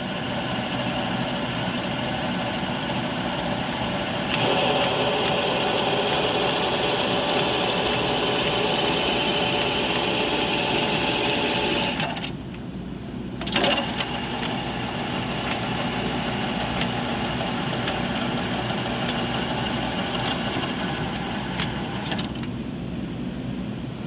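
Hydraulic excavator's diesel engine running steadily. It gets louder about four seconds in, drops back briefly about twelve seconds in, and a sharp knock comes shortly after.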